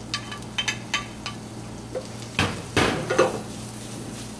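A wooden spatula clicks and scrapes as chopped onion and leek are pushed off a plate into a frying pan, over a light sizzle. About halfway through come two louder knocks as the pan is shifted on the gas range's cast-iron grate.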